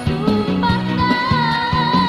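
A Karo pop song playing: a held, wavering vocal melody over a band backing with a bass line of short, evenly repeating notes.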